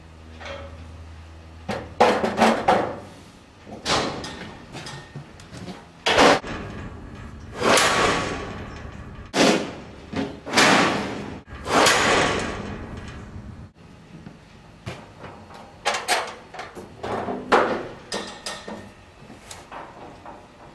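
Metal deck panels and fittings of a livestock trailer's folding deck being worked by hand: a series of clanks and bangs, the loudest in the middle with some ringing on after them, then lighter rattles near the end.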